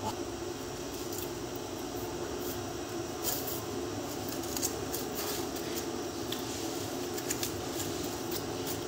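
Napa cabbage leaves being cut and snapped off the head by hand with a knife: scattered crisp snaps and crunches, most between about three and eight seconds in, over a steady background hum.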